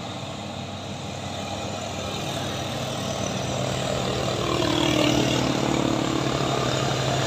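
Heavy diesel truck engines running with a steady low hum. It grows louder over the first few seconds, then holds.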